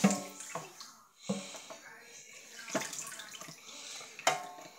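Water running and splashing in a stainless steel kitchen sink as dishes are washed by hand, with a few short louder moments.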